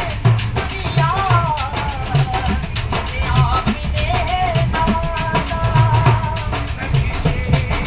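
A man singing a devotional song loudly to a hand drum beaten with the hands in a quick, steady rhythm.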